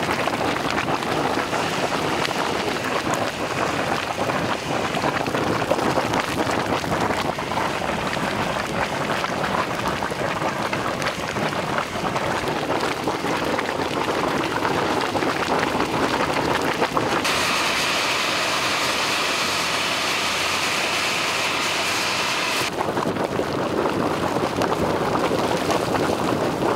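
Natural hot spring water boiling up and splashing among stones: a steady spattering, rushing noise. For about five seconds past the middle it turns brighter and more hissing, then settles back.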